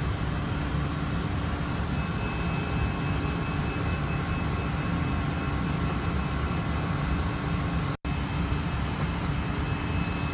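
Steady cockpit noise of an airliner climbing out after take-off: air rushing past and engine hum, with a few steady tones running through it. It drops out for an instant about eight seconds in.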